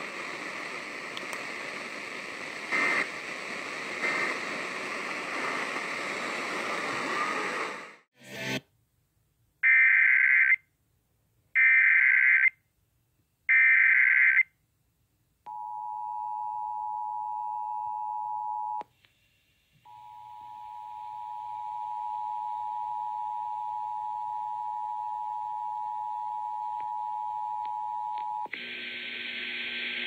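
FM radio receiving an Emergency Alert System broadcast. After about eight seconds of hiss and a click, three short bursts of the warbling digital SAME header sound, about a second apart. Then comes the steady two-tone EAS attention signal, broken once by a brief gap and running until near the end.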